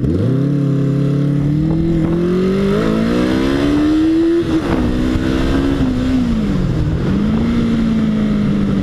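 Motorcycle engine pulling hard and accelerating, its pitch climbing, then dropping at gear changes about four and a half and six seconds in before settling to a steady run, with wind rush on the helmet-mounted microphone.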